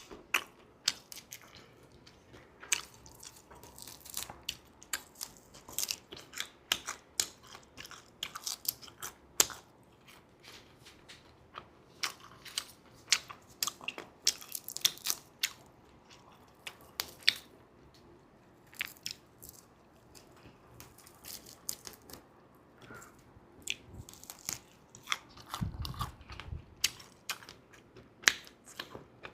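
Close-miked crunching and chewing of dried shrimp: a run of sharp, irregular crunches as the hard, dry shrimp are bitten and chewed. Near the end there is a brief low, muffled bump.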